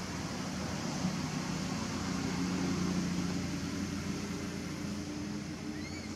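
Steady low hum of a distant engine over a background hiss, swelling a little a few seconds in. Near the end, a brief high chirp.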